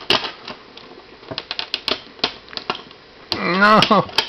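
Plastic parts of a bootleg Energon Optimus Prime transforming toy clicking and snapping as it is handled and its joints are moved, a quick irregular run of sharp clicks. Near the end a voice cries out "No!".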